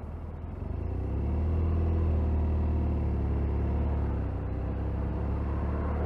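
Motorcycle engine pulling away and then running steadily under way. It grows louder over the first second or two, dips slightly about four seconds in, then holds steady.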